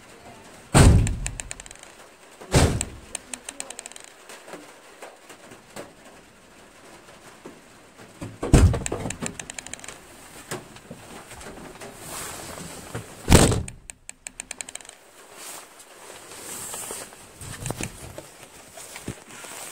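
Van doors slammed shut, heard from inside the empty metal cargo area: four heavy slams, two in the first three seconds and two more about nine and thirteen seconds in, each followed by a brief rattle of the door and body panels.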